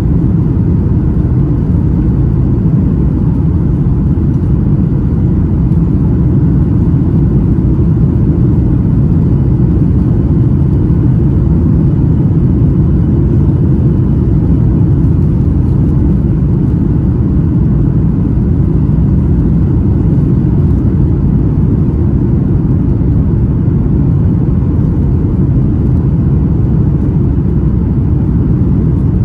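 Steady cabin noise of a Boeing 737-800 on approach, heard from a window seat: a loud, even rumble of airflow and the CFM56 engines, with no distinct events.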